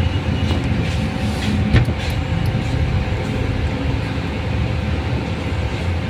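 Steady low rumble of a running engine with a faint constant hum over it; a single sharp click about two seconds in.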